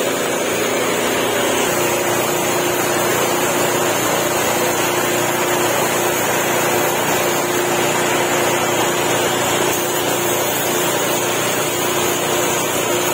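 Steady hiss of a compressed-air paint spray gun with an air compressor running, and a steady hum coming in about a second and a half in.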